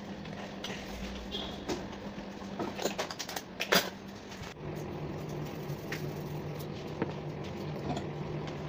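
Kitchen handling noises: a run of light knocks and clicks from a bowl and dishes being moved on a table, with one sharp clack just under four seconds in. Under it a steady low hum that drops slightly in pitch a little after four and a half seconds.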